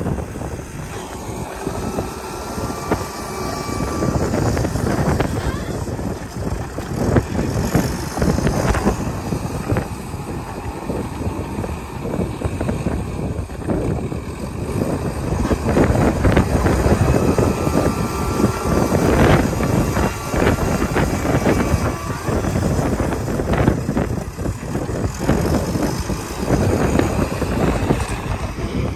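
Wind buffeting the microphone in gusts: a rumbling rush that rises and falls.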